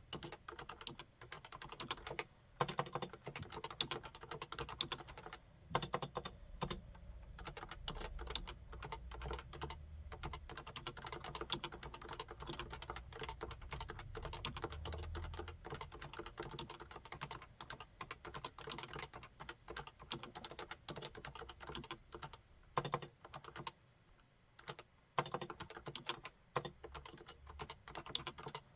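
Continuous fast typing on a Realforce 101, a full-size keyboard with Topre electrostatic capacitive switches: a dense run of key strokes with a few slightly louder ones and brief pauses, the longest near the end.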